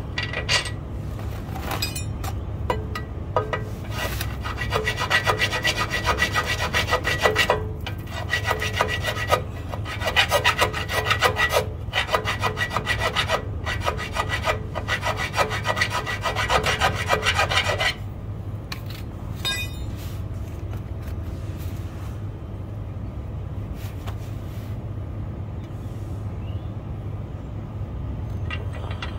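A hand file rasping back and forth inside a bolt hole in a steel truck bracket, reaming the hole out so the bolt will fit, at about two strokes a second with a metallic ring. The filing stops about 18 seconds in, and a steady low hum runs underneath throughout.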